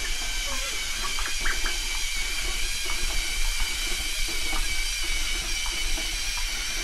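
Small electric drive motors of an R2-D2 talking toy figure whirring steadily as it rolls forward across carpet, with a few faint short chirps over it.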